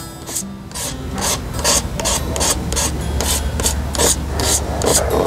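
Fine wet sandpaper rubbed back and forth by hand over dried touch-up paint on a Honda scooter's plastic body panel, a steady run of rasping strokes, several a second, sanding the paint flat and level.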